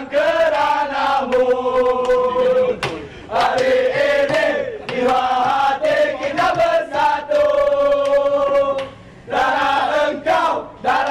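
Male voices chanting in unison, in phrases of long held notes broken by short pauses.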